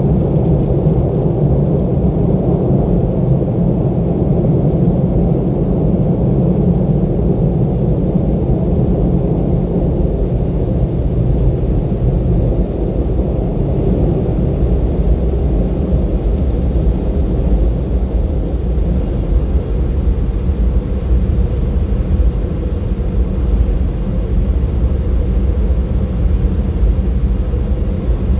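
Car wash air dryer blowers running, heard from inside the car as a loud, steady low rumble that eases slightly as the car pulls out of the exit.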